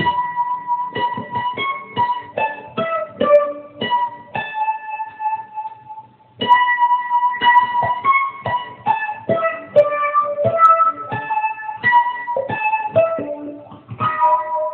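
Music from a looping performance: a sparse melody of single, separately struck notes on an electronic instrument, pausing briefly about six seconds in before carrying on and fading away near the end.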